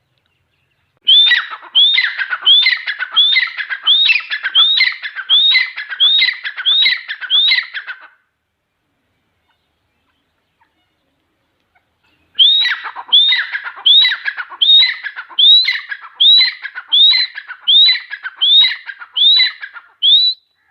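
Grey francolin calling: two runs of loud, rapidly repeated rising notes, roughly a dozen to each run at under a second apart, separated by a pause of about four seconds.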